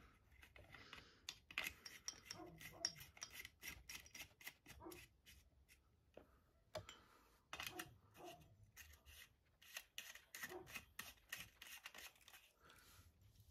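Faint, irregular clicking and rubbing of small hard objects being handled, a few dozen light clicks in quick uneven runs.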